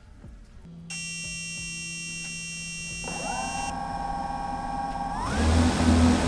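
A steady high electronic beep sounds, then the multirotor drone's motors arm and spin up with a rising whine about three seconds in. Near the end they throttle up sharply into loud propeller noise as the drone lifts off.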